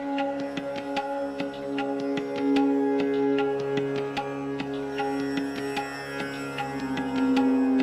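Background instrumental music: quick plucked and struck notes over steady held drone tones.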